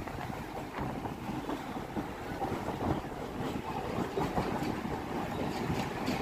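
Mumbai suburban electric local train running at speed, heard from inside the carriage by an open window: a steady rumble of wheels on the track with wind noise on the microphone.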